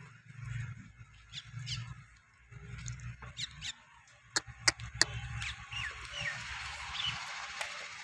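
Small birds chirping over a low rumble, with three sharp clicks in quick succession about halfway through, the loudest sounds here; a steady hiss comes in for the second half.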